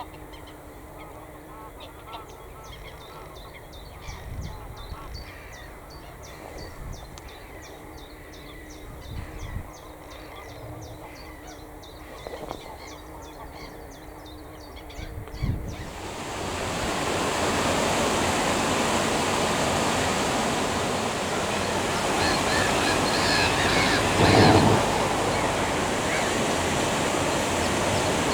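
Geese honking among other waterbird calls, a quick series of short calls. About halfway through, a loud steady rushing noise sets in and covers the calls, peaking briefly near the end.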